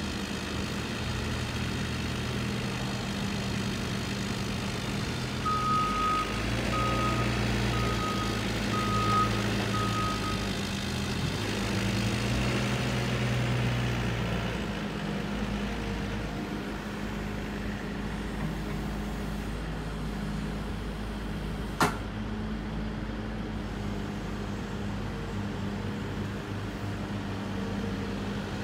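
CAT 308E2 CR mini hydraulic excavator's diesel engine running steadily, its note shifting as the hydraulics take load. Its travel alarm beeps six times in an even row, about one beep a second. A single sharp click about two-thirds of the way through.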